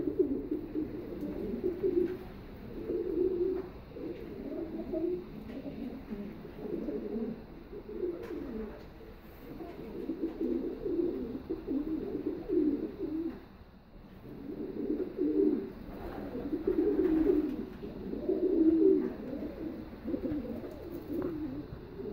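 Domestic racing pigeons cooing, many low overlapping coos one after another, with a brief lull about two-thirds of the way through.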